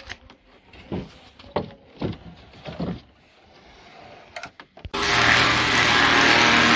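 A few scattered knocks and clicks, then an electric power tool starts abruptly about five seconds in and runs loudly and steadily on wood.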